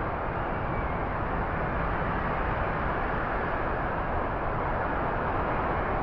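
Strong storm wind blowing hard and steadily, a dense rushing noise with no distinct gusts or whistling tones.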